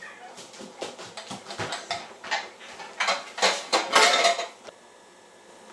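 A bowl and cutlery clattering as they are cleared into a kitchen sink: a run of clinks and knocks, busiest near the end, that stops suddenly about five seconds in.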